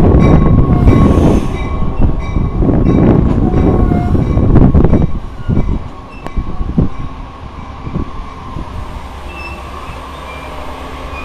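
Metra bilevel commuter coaches rolling past the platform as the train brakes into the station: wheels clicking over rail joints with a steady high squeal. About five seconds in the noise drops sharply as the train slows almost to a stop, leaving a low rumble and a few clicks.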